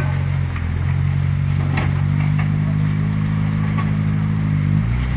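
Engine of a tube-frame rock-crawler buggy running at low revs as it crawls over boulders, the pitch stepping up about two seconds in and falling back near the end. A single sharp knock about two seconds in.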